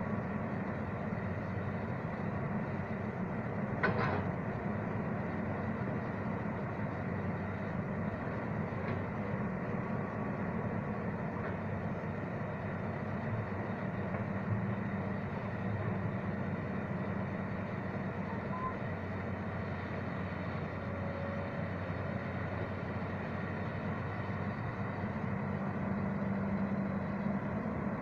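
Heavy diesel engine running steadily with a low, even drone, and a single short clank about four seconds in.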